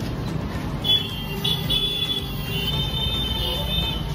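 Road traffic rumbling steadily, with several short high-pitched horn toots in the middle, the longest held for about a second.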